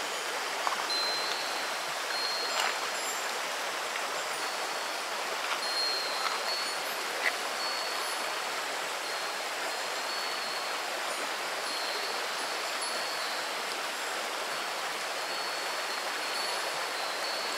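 Shallow stream babbling steadily over a pebble bed. A wind chime rings faintly high in the background, with a few light strikes in the first half.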